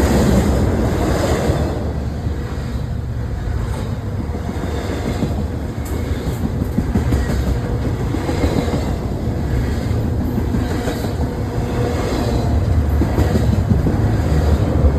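Long freight train's cars rolling past at close range: a steady rumble of steel wheels on rail, with scattered clicks from the wheels passing over rail joints.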